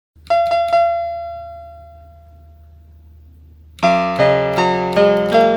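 Software piano played from a computer keyboard: three quick notes at the same pitch ring out and fade slowly, then near the end a fuller passage of chords and melody starts in a steady rhythm.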